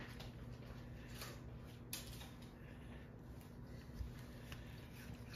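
Quiet room tone: a faint steady hum and hiss with a few soft clicks.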